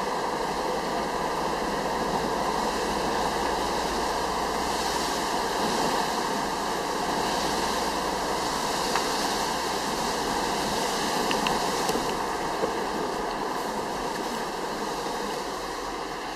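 Steady hiss of car tyres on a wet road, heard from inside the moving car, easing a little near the end.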